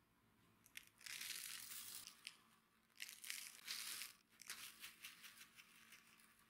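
Coarse salt poured in a stream from a paper container onto a wooden tabletop: a gritty hiss of falling grains with small ticks, in three pours, the last trailing off.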